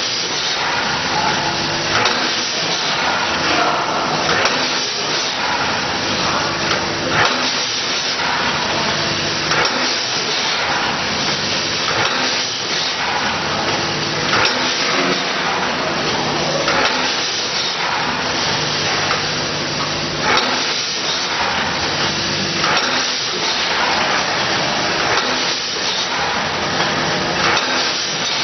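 Packaging machine running through its cycle: a steady hiss with repeated knocks and a low hum that comes and goes every two to three seconds.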